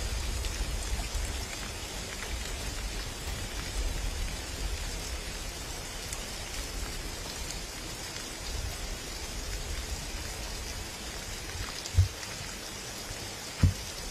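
Steady outdoor ambience: an even, rain-like hiss of water noise over a low rumble of wind on the microphone, the rumble easing after the first half. Two brief low thumps come near the end.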